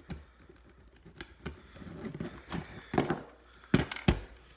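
Sharp clicks and knocks from hands handling a plastic Coleman Sheltra smoke alarm. A few scattered clicks come first, then the two loudest knocks about half a second apart near the end.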